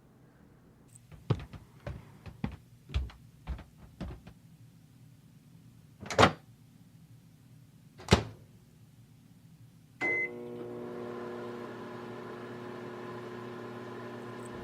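Microwave oven: several light knocks and clicks, then two louder thuds about six and eight seconds in, like its door opening and shutting. A short beep follows, and the oven starts running with a steady hum, heating a hot water bottle.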